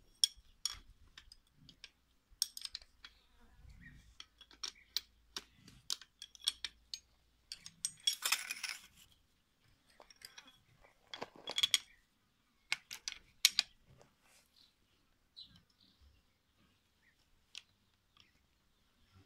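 Metal clinks, taps and scrapes of a hand tool working on a sickle-bar mower's steel cutter bar. It is a string of sharp clicks, with two longer scraping bursts about eight and eleven seconds in, growing sparser toward the end.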